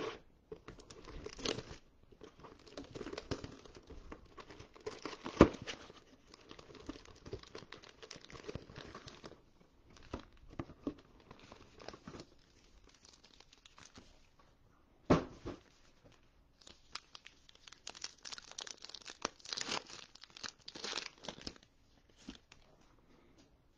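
Clear plastic shrink wrap crackling as it is torn and crumpled off a cardboard trading-card box, then card-pack wrappers crinkling as they are handled and torn open, densest in the last few seconds. Two sharp knocks stand out, about five and fifteen seconds in.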